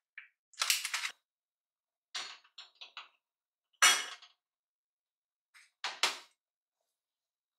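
Plastic food packaging crinkling as it is handled, then sharp clanks of an enamel pot and its lid being handled on a gas stove's grate, the loudest about four seconds in and another about six seconds in.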